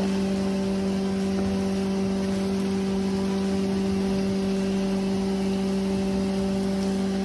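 A loud, steady hum with several overtones over a constant hiss, unchanging throughout.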